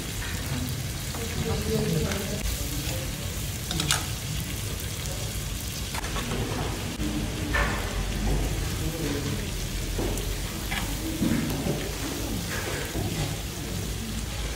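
Raw meat and seafood sizzling on a hot tabletop barbecue grill pan, a steady frying hiss, with a few sharp clicks of metal tongs against the pan.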